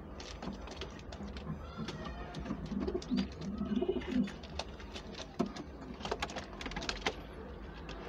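Homing pigeons cooing: a run of low coos that rise and fall in pitch about three to four seconds in, with scattered light clicks and taps around them.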